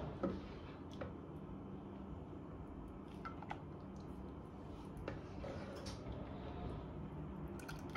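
Hot soup being ladled into a glass serving bowl: soft pouring and a few faint, sharp clicks of the plastic ladle against the glass, over a low steady background noise.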